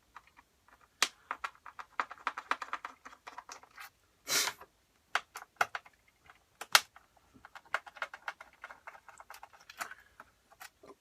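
A small screwdriver taking the logic board screws out of a 2011 27-inch iMac: a run of small clicks and taps from the driver and screws. There is a short, louder burst of noise about four seconds in and a few sharper clicks after it.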